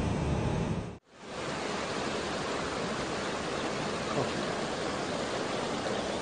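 Low road rumble from a moving vehicle that cuts off abruptly about a second in. It is followed by a steady, even rushing hiss of river ambience.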